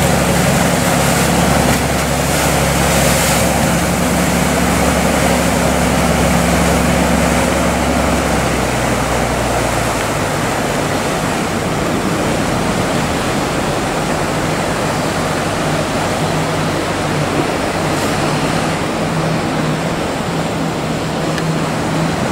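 Fishing boat's diesel engine running as the boat motors past close by, a steady low drone that fades after about eight to ten seconds as it heads away, over the steady wash of waves and surf.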